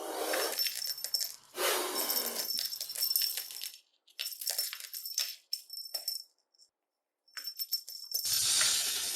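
Snake sound effect: repeated rattling hiss in bursts of one to two seconds, separated by short gaps.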